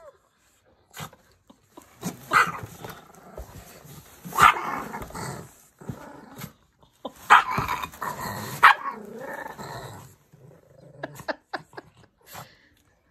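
A German Shepherd and a Brussels Griffon tussling in play, growling and barking in loud bursts every couple of seconds. A few short sharp clicks follow near the end.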